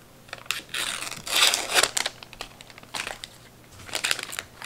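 Thin protective wrapping crinkling as it is pulled off a new laptop power adapter, in a few bursts of rustling with light clicks from handling; the longest and loudest burst comes about a second and a half in, another near the end.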